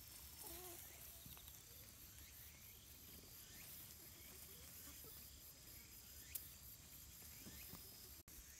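Faint rural ambience of insects droning steadily at a high pitch, with a soft, brief cluck from a foraging hen about half a second in.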